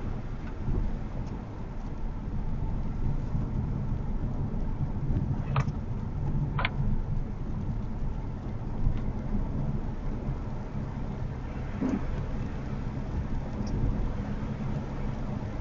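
Steady low rumble of a Honda HR-V e:HEV driving on a wet mountain road in the rain: tyre and road noise, with a few short sharp clicks around the middle.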